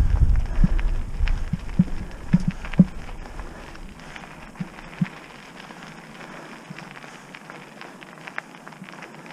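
Trek Roscoe 6 mountain bike moving slowly on a dirt trail climb: light crunching with scattered irregular knocks and clicks. A low rumble in the first second or so fades away.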